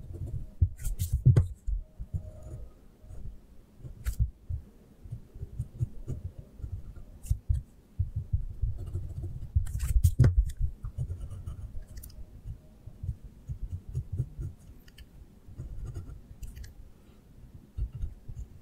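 Pencil drawing on paper: the hand and pencil rubbing and bumping on the sheet, with many irregular low knocks and a few sharp clicks.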